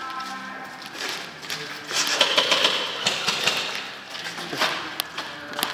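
Airsoft guns firing in rapid bursts of fast mechanical clicks, heaviest from about a second in to the middle, with a shorter burst near the end.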